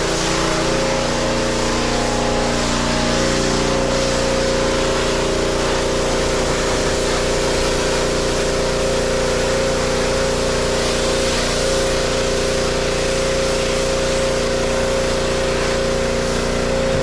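Pressure washer running steadily: a constant motor hum under the hiss of the high-pressure water jet.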